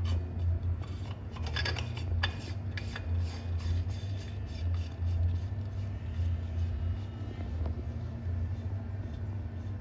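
Anodized aluminium bladder cylinder being screwed by hand onto a WP shock's upper mount, its Loctite-coated threads rubbing lightly, with a few sharp clicks in the first few seconds. A steady low hum runs underneath and is the loudest sound.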